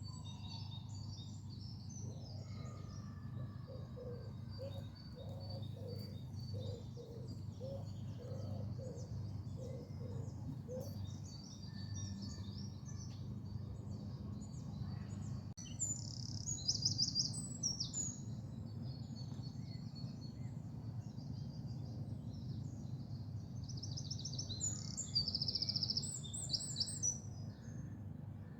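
Several songbirds singing and chirping, with louder rapid trills about halfway through and again near the end, and a run of evenly repeated lower calls in the first third. A steady low rumble sits underneath.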